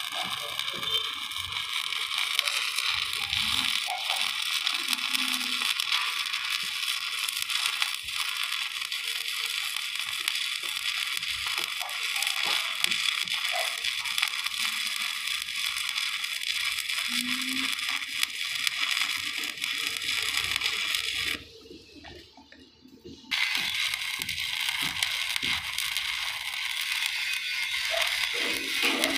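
Stick (shielded metal arc) welding arc burning on steel: a steady, crackling hiss. It cuts out for about two seconds near the end, then is struck again.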